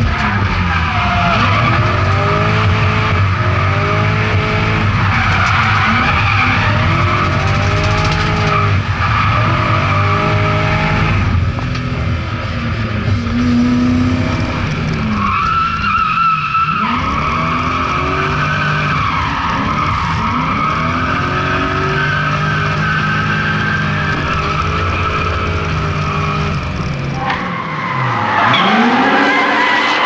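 BMW M60B40 4.0-litre V8 in an E30 Touring, through a homemade stainless-steel exhaust, revving up and down over and over while the car drifts, with tyres squealing and skidding, heard from inside the stripped cabin. Near the end the sound switches to the car sliding past, heard from the trackside.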